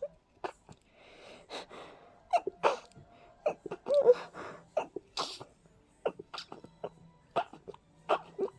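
A person with a cold and a stuffy nose sneezing in a rapid fit: short, sharp sneezes in quick succession, about two to three a second.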